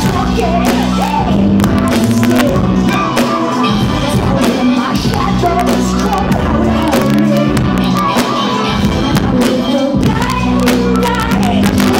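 Live band performance of a song, heard from the audience: a singer's voice over drums, bass and DJ-played backing, with crowd noise in a large hall.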